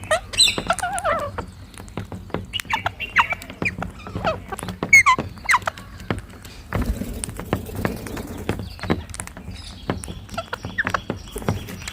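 Rose-ringed parakeets giving short, wavering squawks and chattering calls, amid many sharp clicks. A steady high tone joins near the end.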